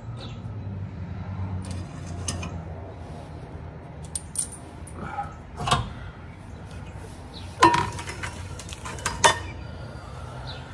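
Metal parts and hand tools clinking and knocking under a car as its transmission is being removed, with a few sharper clanks about six, eight and nine seconds in. A low hum fades out in the first two seconds.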